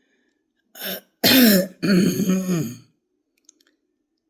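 A man clearing his throat hard and forcing air out through a hoarse, strained voice: a short burst, then two loud rasping pushes lasting about a second and a half. The voice is barely working, and he has to force air out to make any sound.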